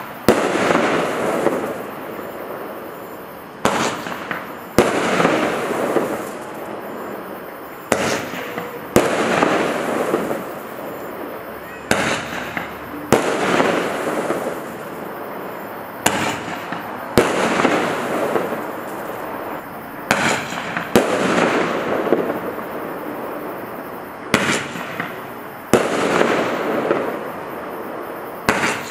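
Standard Fireworks Magic Stars Roman candles firing shot after shot, about one every four seconds. Each shot gives two sharp cracks about a second apart, then a few seconds of crackling glitter.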